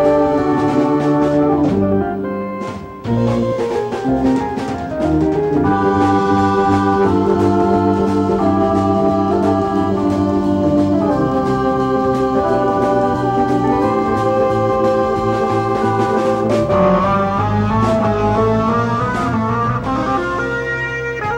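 Instrumental progressive rock played by a live band, led by sustained Hammond organ chords with drums. The music drops briefly about three seconds in.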